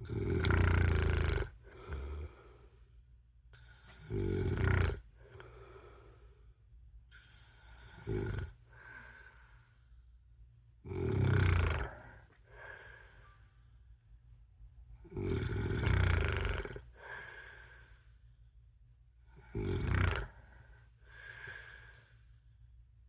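A man snoring in his sleep: a loud snore about every four seconds, each followed by a quieter breath out.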